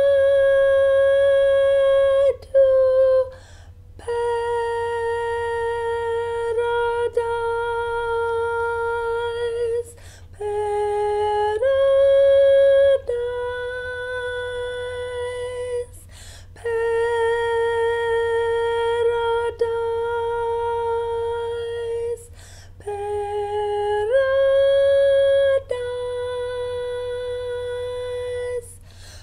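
A woman singing long, steady held notes in a high register, changing pitch between phrases, with short breaks for breath about every six seconds.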